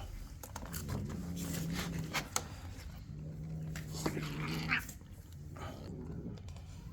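An animal growling low over food, two long drawn-out growls of about a second and a half each, with a few sharp clicks in between.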